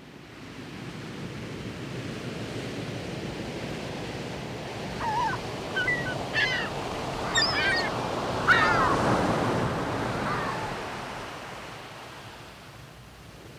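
Sea surf washing steadily, fading in at the start, with several short bird calls in the middle stretch.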